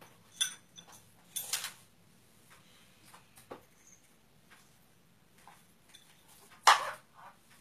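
Spoons and small dishes clinking and tapping on a tray as children scoop and handle seeds: scattered short clinks, with the loudest clatter near the end.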